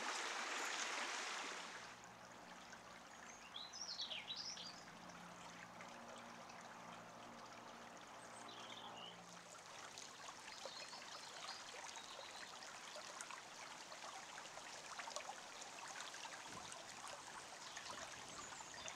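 Faint woodland ambience: a steady soft hiss with a few short bird chirps about four seconds in and again around nine to ten seconds, over a low steady hum that fades out about halfway through.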